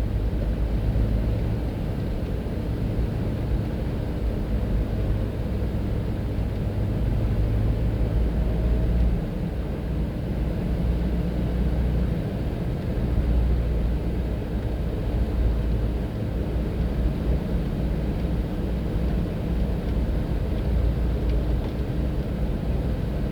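Car driving along a highway: a steady low rumble of engine and road noise with a faint steady hum.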